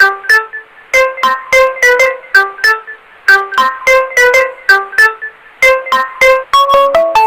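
Samsung Galaxy Tab A (2016) alarm tone playing: a quick melody of short notes, about three a second, in phrases separated by brief pauses.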